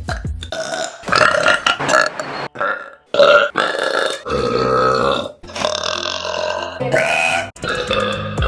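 A woman belching: several long, drawn-out burps in a row with brief breaks between them, brought up by swallowing air.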